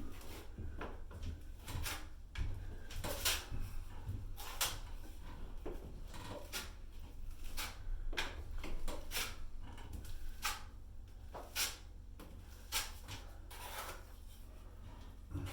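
Metal drywall knife scraping and spreading joint compound in irregular strokes, about one a second, over a steady low hum.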